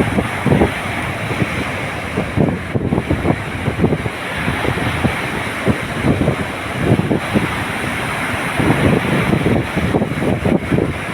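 Sea waves washing on the shore, with gusting wind buffeting the microphone in low, irregular rumbles.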